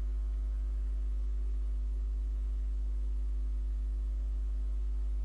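Steady low electrical hum, with a few fainter steady tones above it, running unchanged: mains hum in the recording chain.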